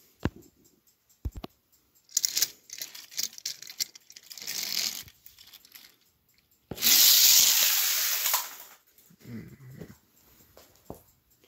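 Toy train engine being handled and pushed by hand along plastic toy track. There are two sharp knocks near the start, then uneven clattering, and a loud rushing roll lasting about a second and a half near the middle.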